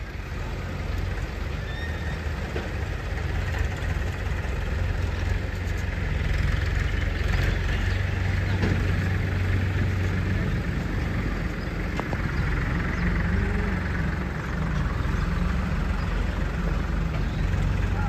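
Diesel engines of a JCB backhoe loader and a tractor running steadily as the loader works soil into the tractor's trolley, growing a little louder over the first few seconds, with a couple of faint knocks.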